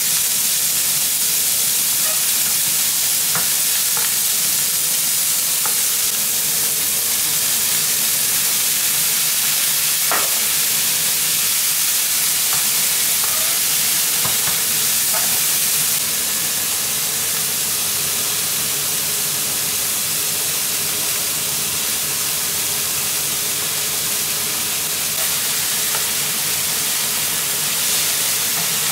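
Minced pork and garlic sizzling in oil in a nonstick frying pan, stirred with a wooden spatula that gives a few light knocks and scrapes against the pan.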